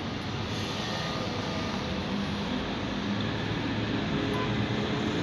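Steady low rumble and hiss of a motor vehicle engine running, with a faint even hum under it.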